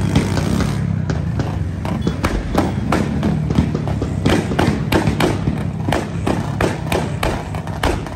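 Quick, uneven knocks, several a second, over a low steady rumble.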